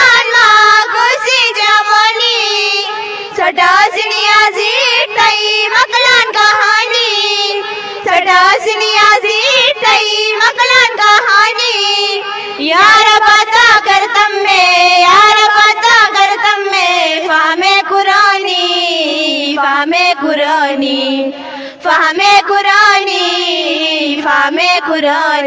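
Several girls singing a nazm together into handheld microphones: a slow sung melody with long, wavering held notes.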